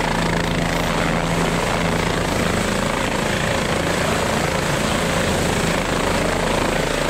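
Helicopter hovering low overhead, its rotor and turbine running loud and steady.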